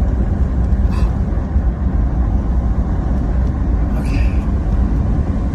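Road and engine noise inside a moving car: a steady low rumble, with a brief click about a second in and a short higher-pitched sound around four seconds.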